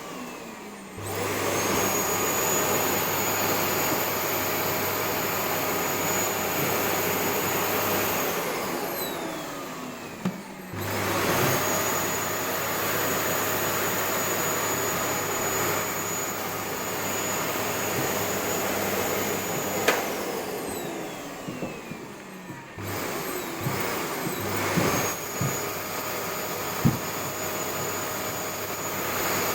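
Vacuum cleaner running and being switched off and on repeatedly. Twice its motor winds down with a falling whine and then starts up again, with a few sharp knocks in between.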